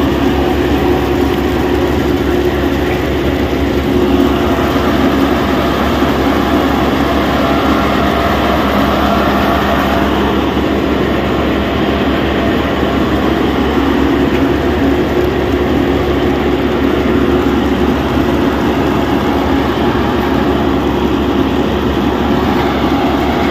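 Groundnut thresher running steadily through the harvest, a continuous machine hum and rattle as peanut pods are threshed from the vines.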